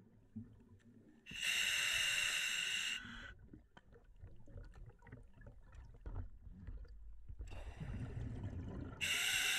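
A scuba diver breathing through the demand-valve regulator of a full face mask. It hisses evenly on two inhalations, about a second in and again near the end. Between them the exhaled air bubbles and gurgles out of the mask's exhaust.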